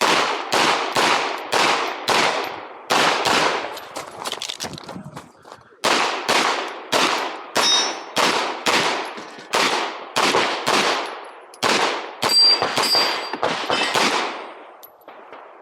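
Handgun fired in a fast string of shots, about two a second, each with an echoing tail, with a pause of about a second and a half about a third of the way in. Steel targets ring with high pings after hits near the end.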